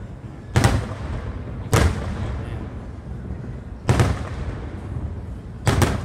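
Aerial firework shells bursting: four loud booms spaced one to two seconds apart, each trailing off in a fading echo.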